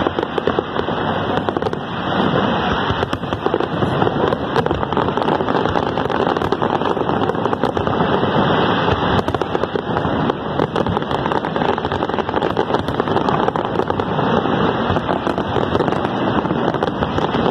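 A fireworks display at full barrage: many aerial shells bursting in rapid, overlapping bangs with no pause.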